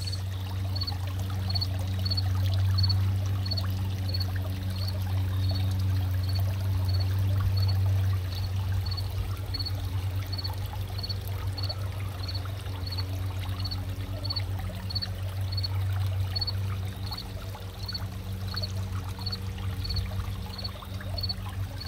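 Water trickling and splashing steadily into a backyard goldfish pond, over a steady low hum. A faint high tick repeats about twice a second.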